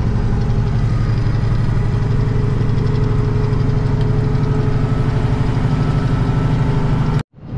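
International ProStar semi truck's diesel engine running steadily while driving, heard from inside the cab. The sound breaks off abruptly for a moment near the end.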